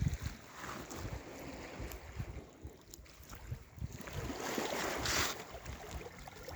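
Sea waves washing onto the shore, one surge swelling to its loudest about five seconds in, with wind buffeting the microphone in low gusts.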